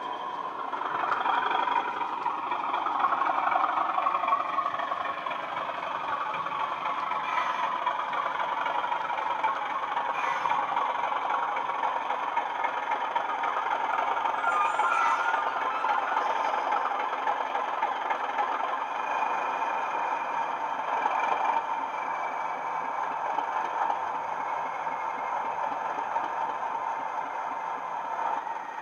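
Sound-fitted Bachmann OO-gauge Class 37 model locomotive: its DCC decoder plays a Class 37 diesel engine running, through a pair of 20x20 mm megabass speakers. The sound swells for the first few seconds, then runs steadily, with a few light clicks.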